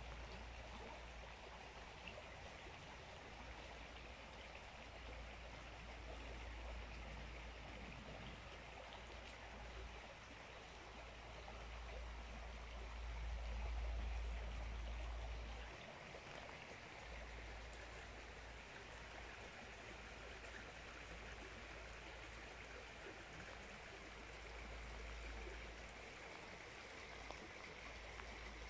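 Shallow river flowing over pebbles and riffles: a steady, soft rush of running water. Underneath it, a low rumble swells about halfway through.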